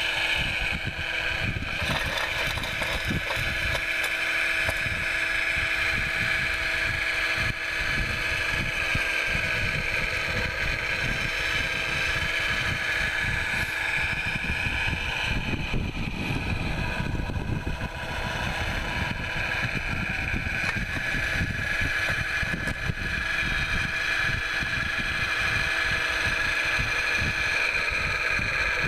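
Caterpillar 966 wheel loader's diesel engine running steadily under load while the loader pushes snow with a snow box, with a constant high whine over a low rumble that eases briefly about halfway through.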